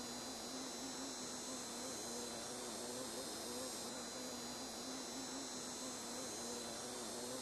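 Steady chorus of insects, a dense high-pitched trilling, with a lower buzz that wavers in pitch underneath.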